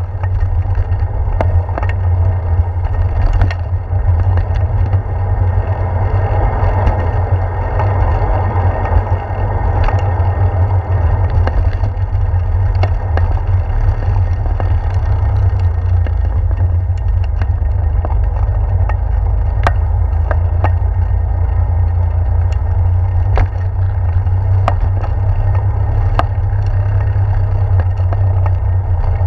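Wind buffeting the microphone of a handlebar-mounted GoPro on a moving bicycle, a steady low rumble, with tyre noise on the trail and bridge deck and scattered sharp clicks and light clatter.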